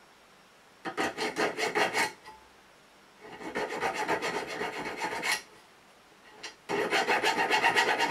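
A thin needle file rasping back and forth across the steel spine of a knife, cutting decorative notches. There are three bursts of rapid short strokes with brief pauses between them: about a second long, then about two seconds, then about two seconds.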